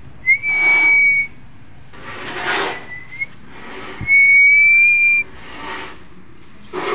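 Whistling: a long, nearly steady note a second long just after the start, a short one near three seconds in, and another long, slightly rising note about four seconds in. Short bursts of rushing noise come between the notes.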